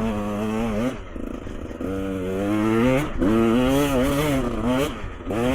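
Liquid-cooled dirt bike engine revving up and down with the throttle while riding single track, its pitch rising and falling several times. The throttle eases off briefly about a second in.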